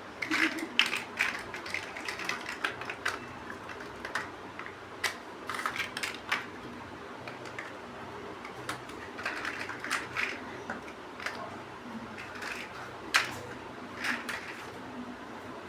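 Small plastic building bricks clicking and clattering as pieces are handled and pressed together, in irregular bunches of sharp clicks with short pauses between.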